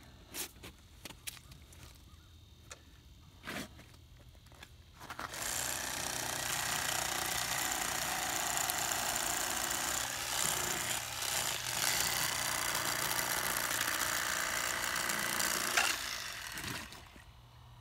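Electric fillet knife running and sawing through a perch to take off the first fillet, a steady buzz that starts about five seconds in and stops about a second before the end. A few light clicks and taps come before it starts.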